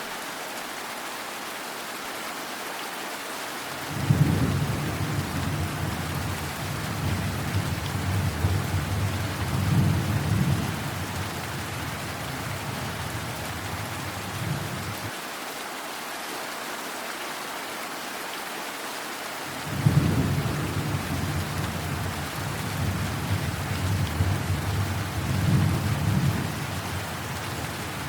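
Steady rain with two rolls of thunder. Each roll starts with a sudden crack, the first about four seconds in and the second about twenty seconds in, then rumbles on for several seconds with a second swell before fading back under the rain.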